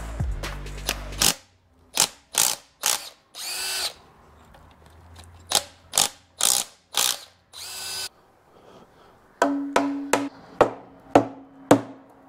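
Hand ratchet wrench clicking in short strokes, some in quick rasping bursts, with the strokes coming evenly at about two a second near the end. A power tool runs and stops about a second in.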